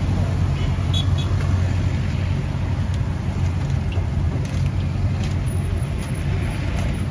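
Fishballs deep-frying in a wok of hot oil, a steady sizzle over a low, even rumble, with a few light clicks as the ladle and wire skimmer touch the wok.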